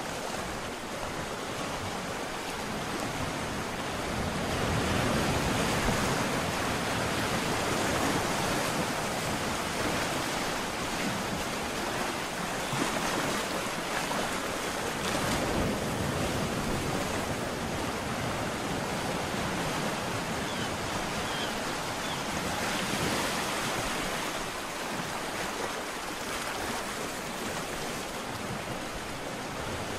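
Ocean surf: waves breaking and washing ashore in a continuous rush that swells louder every few seconds and then eases.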